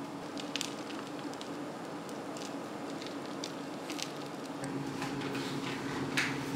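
Hands shaping and cutting soft dough on a metal baking sheet: quiet squishing with scattered light clicks and ticks, over a steady low hum.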